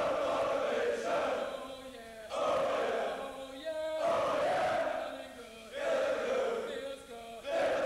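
A large group of men's voices chanting in unison, in loud swells about every two seconds.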